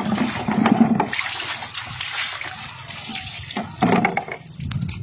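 Water splashing and sloshing in a large basin as hands scoop and wash in it. A couple of short low grunt-like sounds break in near the start and about four seconds in.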